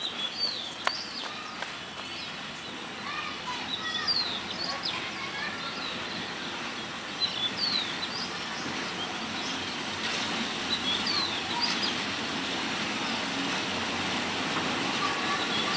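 Birds chirping repeatedly with short, downward-sweeping calls, over the steady noise of a diesel locomotive and its train drawing slowly closer, growing louder toward the end.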